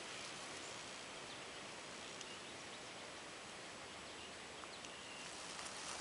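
Quiet outdoor ambience: a steady faint hiss with a few faint short chirps, and light rustling starting near the end.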